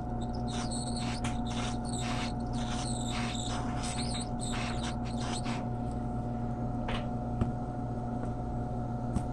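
Heat gun blowing steadily with a constant motor hum, shrinking heat-shrink tubing over the soldered wires of a D-sub connector cable. Over the first half there are repeated short hissing pulses, which then die away.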